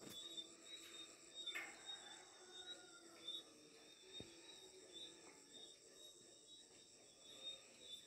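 Faint insect chirring: a steady, pulsing high trill throughout, with a couple of soft clicks.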